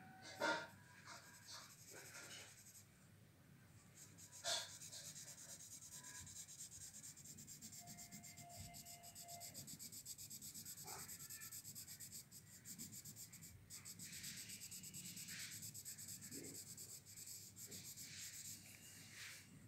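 Pencil scratching on paper in rapid, even back-and-forth shading strokes, faint throughout. Two sharp taps stand out, one about half a second in and one about four and a half seconds in.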